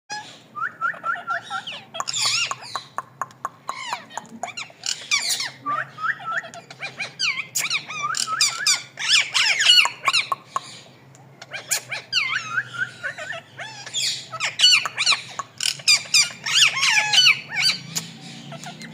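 Parrot calling: rapid high chirps, squeaks and whistled notes, some in quick runs of repeated notes, with brief lulls between bouts.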